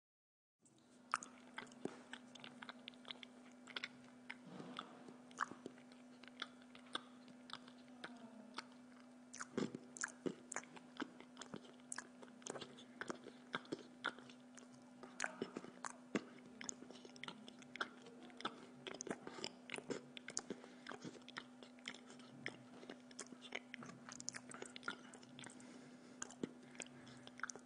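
Close-up sounds of a man eating spaghetti with a fork: chewing and wet mouth sounds with frequent small sharp clicks and scrapes of the fork against the plate, over a steady low hum. It starts just under a second in.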